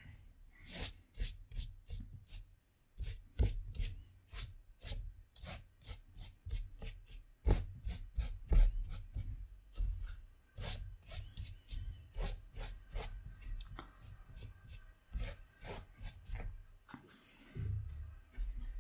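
Fairly dry watercolour brush dragged across textured paper in short repeated strokes: a scratchy rubbing, about two to three strokes a second, with some dull low bumps underneath.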